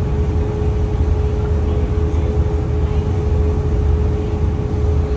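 Boat engine running steadily: a low drone with a steady mid-pitched hum over a wash of noise.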